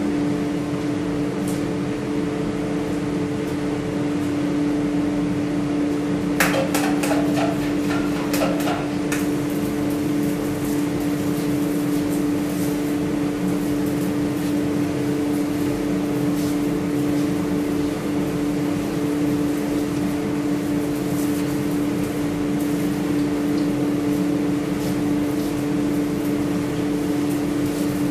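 Steady electric fan hum with a constant low drone. A short clatter of small knocks comes about six to nine seconds in.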